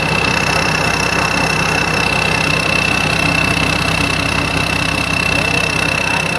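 Combine harvester's diesel engine running steadily, with a constant high-pitched whine over the rumble.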